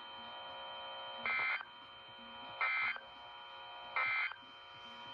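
Emergency Alert System end-of-message signal: three short bursts of digital data tones about 1.3 seconds apart, the SAME code that closes an alert, over a steady electrical buzz.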